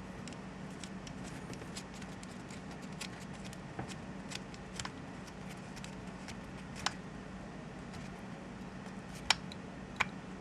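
Light clicks and taps of small metal pistol parts being handled and fitted while a Browning Buck Mark .22 pistol is put back together, with a few sharper clicks in the last few seconds. A faint steady hum runs underneath.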